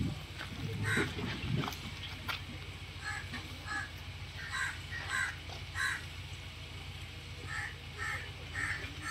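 Birds calling over and over in short calls, often several in quick succession, over a steady low hum, with a low rumbling noise in the first two seconds.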